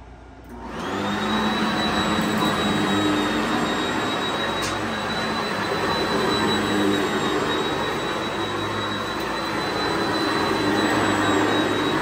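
Sanitaire SC-679K upright vacuum cleaner switched on about half a second in, its motor spinning up to a steady high whine, then running while it is pushed over a thick shag rug.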